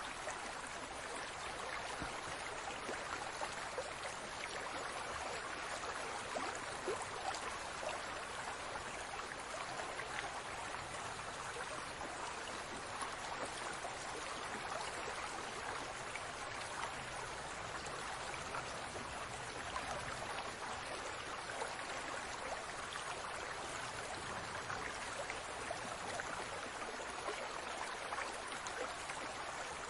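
Aquarium water bubbling and trickling steadily, with a constant patter of small bubbles.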